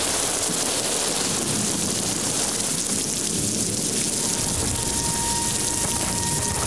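Heavy rain falling steadily, a dense even hiss. A faint steady tone comes in after about five seconds.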